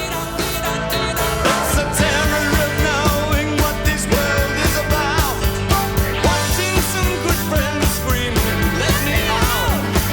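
Background rock music with singing over a steady drum beat.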